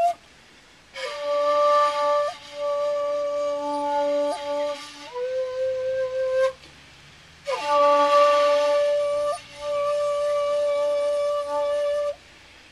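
Shakuhachi, the Japanese end-blown bamboo flute, playing two long, slow phrases split by pauses for breath. Each phrase holds a note with brief grace-note flicks and breath noise on the attack. The first phrase steps down to a lower note before it stops, and the second starts about halfway through.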